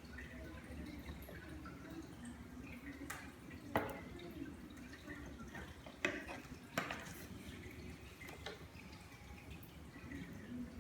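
Chart paper being handled and folded around a small cardboard box: a few short, sharp crackles and taps, spread apart, over a faint low room hum.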